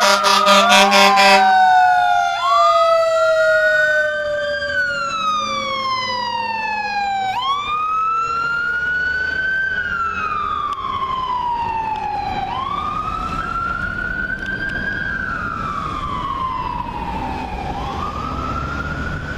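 Fire engine sirens: air horn blasts in rapid pulses for about the first second and a half, over the long, slow, falling tone of a Federal Q mechanical siren winding down. From about two seconds in, an electronic wail siren cycles: each sweep jumps up quickly and falls slowly, about every five seconds.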